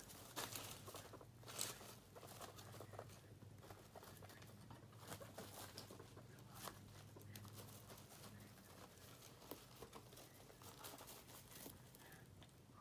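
Guinea pigs moving about in hay and wood-shaving bedding: faint rustling and crinkling with scattered small ticks and taps, over a faint steady low hum.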